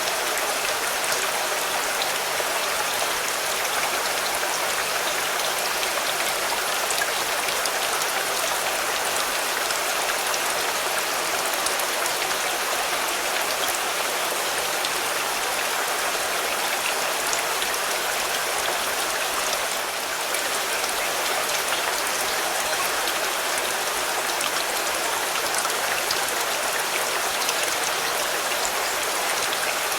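Steady rain falling on a car, a dense even patter with many small sharp drop ticks.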